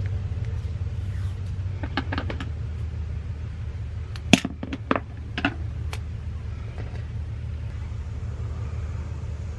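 Steady low hum with a few short clicks and rustles, one pair about two seconds in and a quick run of sharper clicks about four to six seconds in, the loudest near the start of that run.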